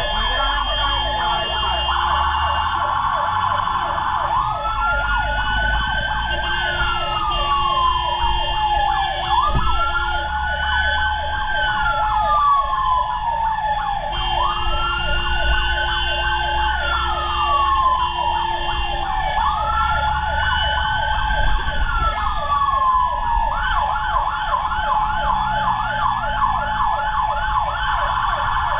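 Fire truck sirens: a slow wail rising and falling about every five seconds over a fast warble and a steady tone, with engine rumble underneath. Near the end the wail gives way to quicker yelping sweeps.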